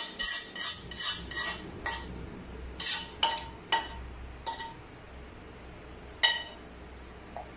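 Metal utensil clinking and scraping against a frying pan as the topping is scraped out of it. There is a quick run of ringing clinks over the first four or five seconds, then one louder clink after a short pause.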